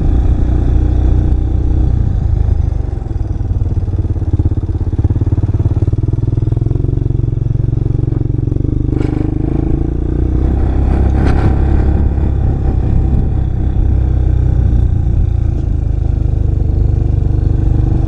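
ATV engine running steadily under way over a rough dirt trail, a loud low drone that eases briefly about three seconds in. Two short clattering knocks come around the middle.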